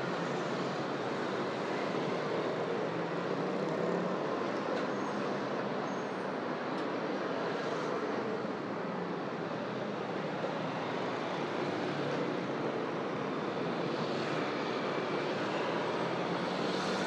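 Steady city traffic noise: a continuous wash of passing vehicles on a busy street.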